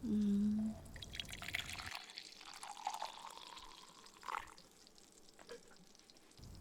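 A short hummed voice, then hot coffee poured from a pot into a cup for about three seconds, the pouring tone rising a little as the cup fills.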